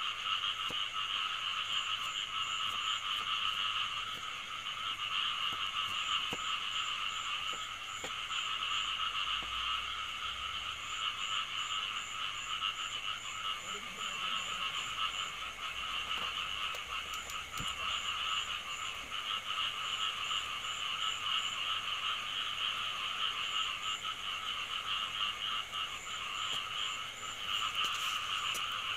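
A dense chorus of frogs calling without a break. A faster, high-pitched pulsing call comes and goes over it, at about four pulses a second.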